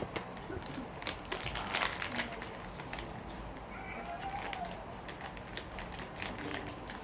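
Crunchy snack food being chewed close to the microphone: irregular crisp crunches, thickest in the first couple of seconds.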